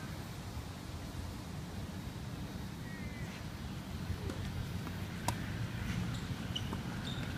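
A tennis racket strikes the ball once, a sharp crack about five seconds in, over a steady low background rumble.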